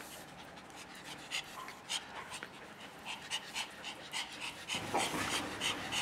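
A dog panting quickly, about four short breaths a second, growing louder near the end.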